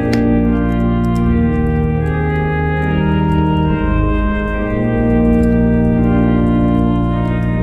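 Aeolian-Skinner virtual pipe organ (a sampled pipe organ) playing a Christmas hymn in sustained full chords over a deep pedal bass, the harmony changing every second or so.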